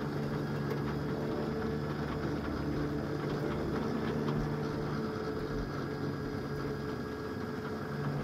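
Steady mechanical hum of a flatbed tow truck's winch motor and engine running, paying out the wire as a minibus is lowered slowly down the tilted bed.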